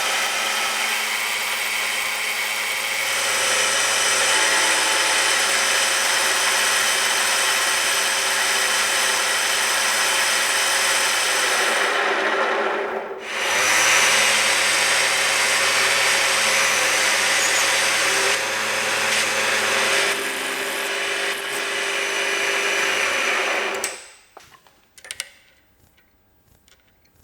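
Machine tool motor running steadily while machining metal, with a hum under a noisy cutting sound. It stops and restarts about halfway through, then shuts off near the end.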